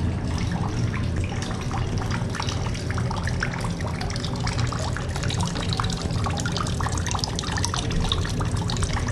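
Small stone courtyard fountain, two thin streams of water trickling and splashing steadily into its basin.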